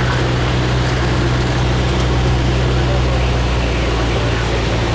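Cabin noise of a single-engine light aircraft in flight: the steady drone of its piston engine and propeller, with a wash of airflow noise over it.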